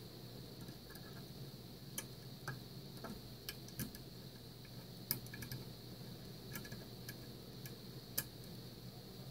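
Steel lock pick working the serrated pins of a Mul-T-Lock Interactive cylinder under tension, giving a scatter of small, irregular metallic clicks, with two sharper clicks about five and eight seconds in.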